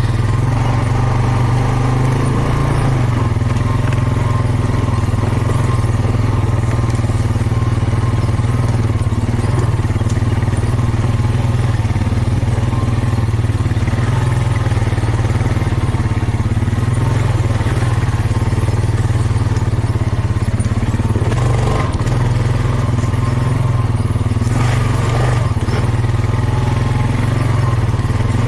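ATV engine running steadily under way, a loud, even drone with only small changes in pitch.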